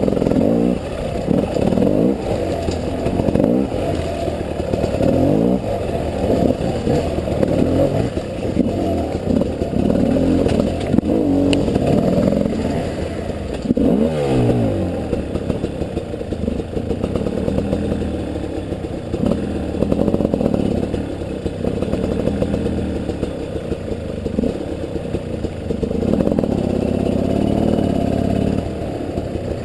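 300 cc two-stroke enduro motorcycle engine revving up and down over and over as the throttle is worked, with a deep drop and climb in pitch about halfway through. Clattering and scraping from the bike runs under the engine.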